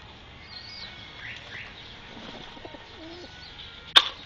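Feral pigeons close by with faint bird chirps and low coos, then one sharp knock near the end, the loudest sound.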